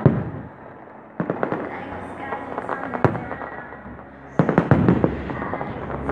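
Fireworks going off overhead: a loud bang right at the start, then quick runs of crackling pops. Another sharp bang comes about three seconds in, and a dense flurry of bangs about four and a half seconds in.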